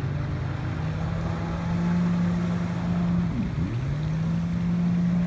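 Engine of a dolphin-shaped Seabreacher watercraft running at speed over a rush of water, with one steady note. About three and a half seconds in the note drops sharply and comes straight back up as the craft dives and throws up spray.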